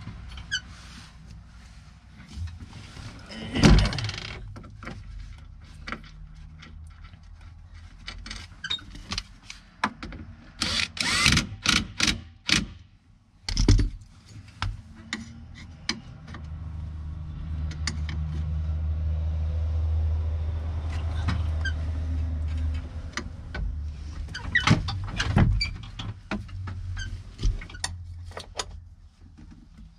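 John Deere 410G backhoe pilot control pedestal arm being worked up and down on its freshly replaced gas cylinder, giving sharp clunks and knocks as it is moved and hits its stops: a handful about 4 s in, a cluster around 11 to 12 s, one near 14 s and more around 25 s. Under them runs a steady low machine hum that grows louder for several seconds in the middle.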